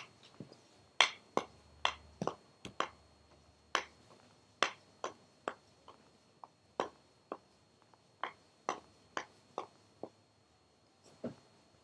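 A wooden stick knocking a home-made underwater-hockey puck, a round ashtray wrapped in rubber and foam tape, across a hard floor: a run of sharp, irregular clacks, about two a second.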